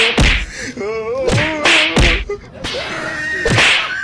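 A series of sharp, loud impacts, a pair at the start and more about every second and a half. Between the first ones comes a wavering pitched sound.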